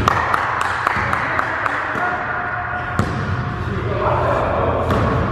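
Basketball bouncing on a hardwood gym floor, irregular thuds in an echoing gym, amid players' voices and shuffling.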